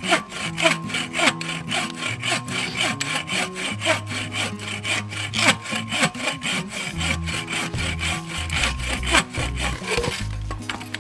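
Hand saw cutting through wood in quick, even back-and-forth strokes.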